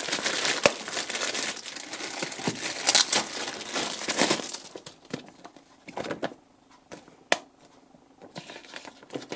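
Clear plastic bag crinkling as a paper manual is pulled out of it, for about four and a half seconds; then only light paper rustles and a few sharp clicks.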